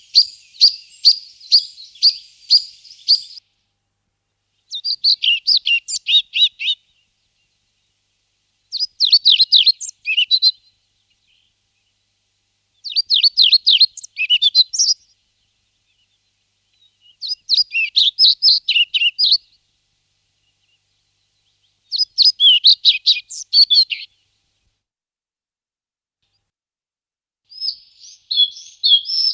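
A small songbird, from the recordings of flycatchers, nuthatches and treecreepers, singing short high-pitched phrases about two seconds long, six times with pauses of about two seconds between them. The first phrase is a fast run of repeated notes and the later ones are quick, varied notes. Near the end a different, scratchier bird call begins.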